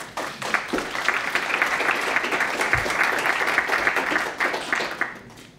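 Audience applauding. A few scattered claps build into dense clapping, which thins out and dies away near the end.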